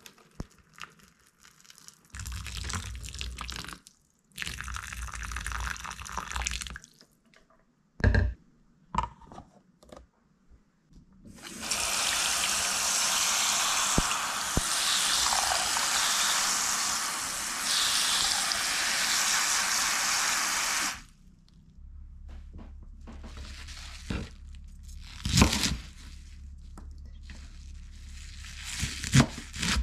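Hot water poured into a plastic pasta cooker over dry spaghetti, in two pours. Then a tap runs hard into a glass bowl, splashing over rapeseed greens (nanohana) as they are washed, for about ten seconds; this is the loudest sound. Near the end, a few knife thuds on a wooden cutting board.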